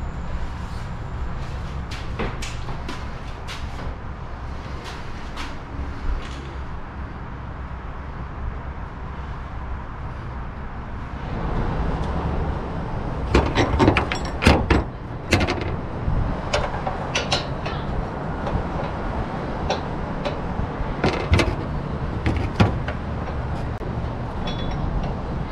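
Sharp clicks and knocks of a roof-basket mounting clamp being handled and fitted onto the rack's rails on the car roof, in clusters about halfway through and again later, over a steady low rumble.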